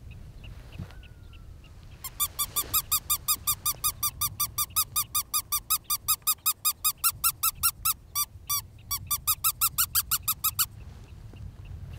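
Predator call squeaking: a fast, even run of high squeaks, about five a second, starting about two seconds in and stopping shortly before the end, with one short break.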